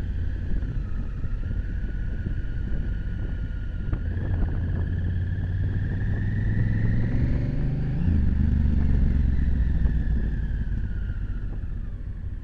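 Honda Africa Twin CRF1000's parallel-twin engine under way. The revs climb for a few seconds, then drop sharply about eight seconds in and run on steadily, easing off near the end.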